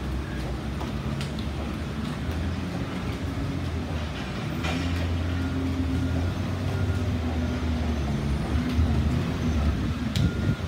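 Packing-shed machinery running: a steady low rumble and rattle that grows somewhat louder about halfway through, with a couple of sharp knocks.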